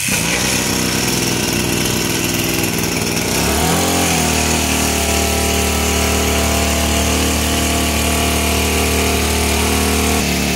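Two-stroke engine of a Fujima 767 knapsack power sprayer running, starting abruptly. Its pitch shifts about four seconds in and then holds steady.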